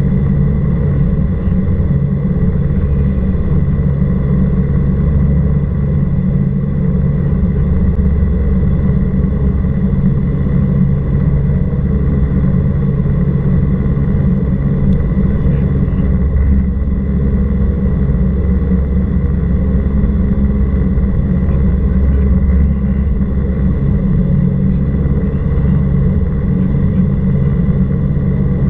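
Cessna 172R Skyhawk's four-cylinder Lycoming engine and propeller droning steadily in flight, a constant low rumble with a fixed engine pitch.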